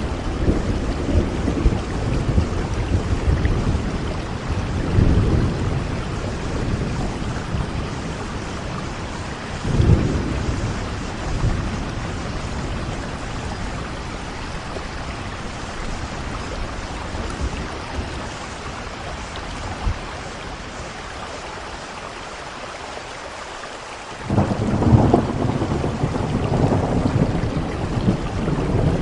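Heavy rain falling steadily with rolling thunder: low rumbles swell in the first few seconds and again around ten seconds, the storm eases to the rain alone for a while, then a loud peal of thunder breaks in suddenly near the end.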